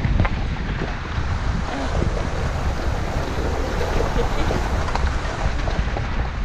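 Wind buffeting the microphone of a 4WD driving on a gravel road, over a steady low rumble from the tyres and engine, with a few faint clicks.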